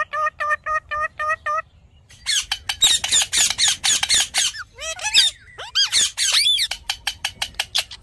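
Rose-ringed parakeets calling: a run of about seven quick, evenly spaced squawks in the first second and a half, then from about two seconds in a dense stretch of shrill, high screeches and rapid chatter.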